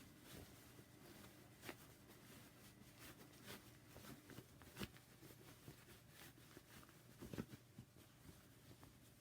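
Faint rustling and soft scattered handling sounds of cloth as a sewn fabric bag is turned right side out, over a low steady hum.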